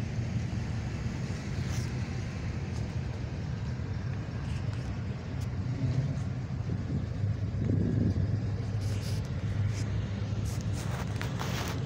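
Cars and pickup trucks driving slowly past, a steady low engine rumble, with one vehicle swelling louder about eight seconds in. A few light clicks come near the end.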